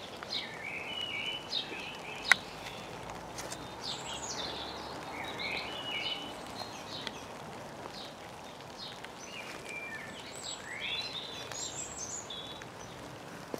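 Eurasian blackbird singing, short warbled phrases repeated again and again, over a soft steady hiss of drizzle. A single sharp click about two seconds in.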